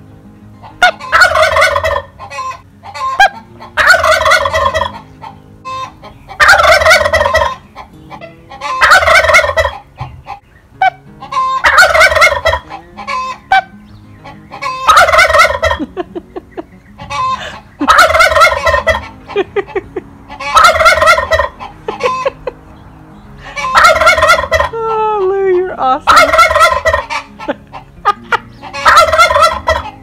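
Blue Slate heritage turkey tom gobbling over and over, about eleven loud rattling gobbles, one every two to three seconds.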